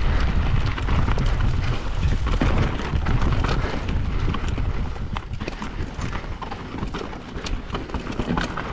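Mountain bike rolling fast over rough rocky trail: a steady low rumble under many sharp knocks and clatters as the tyres strike rocks and the bike rattles, easing off somewhat in the second half.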